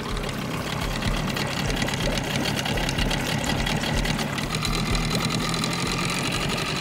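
Brand-new Mercury ME9.9MH Light outboard (a Tohatsu 9.8, 169 cc two-stroke twin) idling steadily with a fast, even pulsing, running at idle in the first stage of its break-in. A thin higher tone joins a little after halfway.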